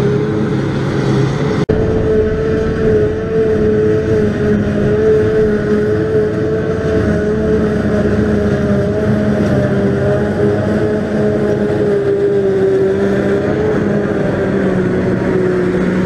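Claas Jaguar 840 forage harvester running at working speed while chopping grass silage and blowing it into a trailer: a steady engine drone under a strong, steady whine. The sound breaks off for an instant a little under two seconds in.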